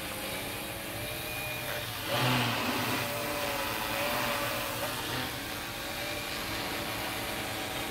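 Hexacopter drone's electric motors and propellers buzzing in flight, with a pitch that wavers up and down as the motors adjust speed. A louder rush comes about two seconds in.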